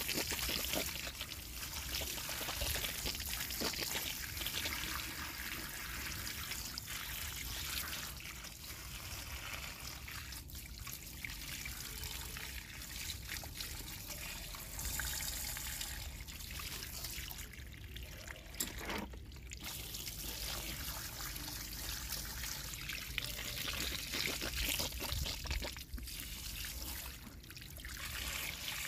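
Water running from a garden hose and splashing over a plastic toy excavator and the wet ground as it is rinsed off, a continuous pouring and trickling.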